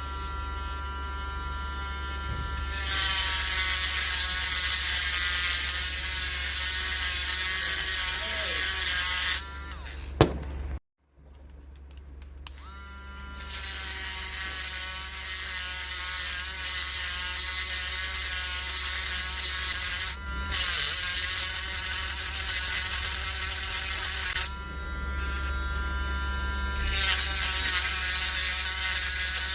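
Cheap mini rotary tool spinning a diamond cutting disc, grinding a slot into a stripped balisong pivot screw. A steady motor whine runs throughout, joined in long stretches by a loud gritty hiss while the disc bites into the screw. The sound cuts out completely for about a second, around eleven seconds in.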